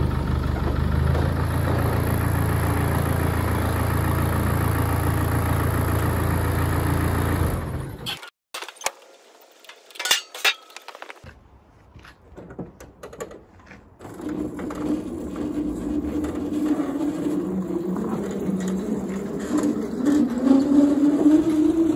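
A vehicle engine idling steadily, cutting off about eight seconds in, followed by a few seconds of quiet with odd clicks. About fourteen seconds in, the electric motor of a Tornado Rookie child's ride-on car starts whining under load as it tows a loaded car trailer, its pitch rising near the end.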